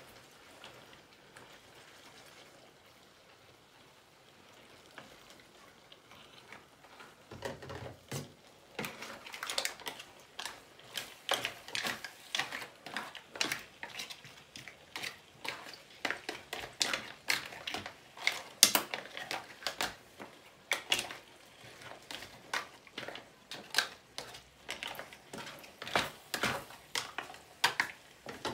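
Spaghetti with mussels being stirred and tossed in a non-stick frying pan with a spoon: repeated irregular clacks and scrapes of the spoon against the pan and the mussel shells, about two a second, starting after about seven seconds. Under it a faint sizzle from the pan on the heat.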